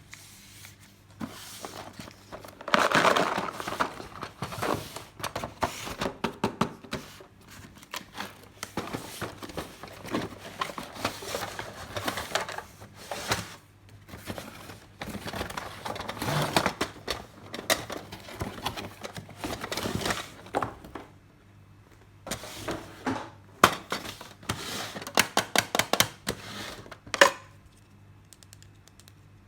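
Plastic packaging crinkling and rustling as a toy washing machine set is unboxed, with small plastic parts clicking and knocking. The rustling fills the first two-thirds; near the end come mostly quick sharp clicks and taps.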